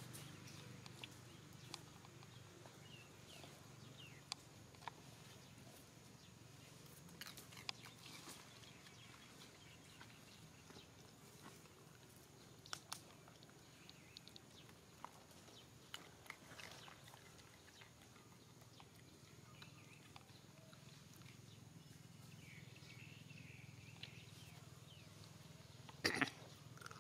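Near silence: faint outdoor ambience with scattered soft ticks, and a brief cluster of sharp clicks near the end.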